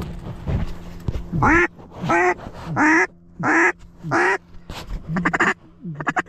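Mallard duck call blown close by: five long, loud quacks about 0.7 s apart, then a fast run of short quacks starting about five seconds in, calling to incoming mallards.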